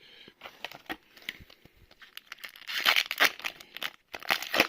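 Crinkling and rustling of plastic or foil packaging being handled at close range, with a few light clicks. There are two louder crinkles about three seconds in and again near the end.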